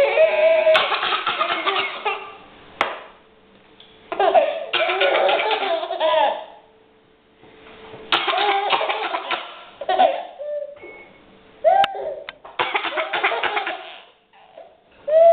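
A small child laughing in about five bursts, mixed with breathy, forced fake coughs. Each burst has high squeals and breathy stretches, with short quiet gaps between them.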